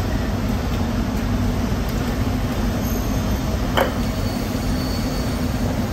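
Steady low mechanical rumble with a constant hum, and a single short sharp knock just before four seconds in.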